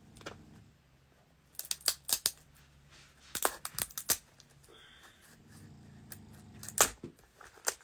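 Short clusters of sharp clicks and crinkling, as of something being handled, coming in groups every second or two with the loudest click near the end.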